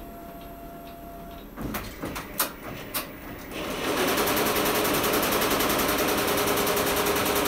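Ricoma six-head embroidery machine starting up: a few clicks and knocks, then about three and a half seconds in it comes up to speed into a loud, steady, rapid stitching clatter that holds to the end.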